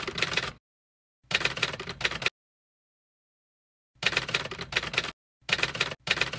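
Typing sound effect: bursts of rapid key clacks that go with on-screen text being typed out, broken by stretches of dead silence, one of them about two seconds long near the middle.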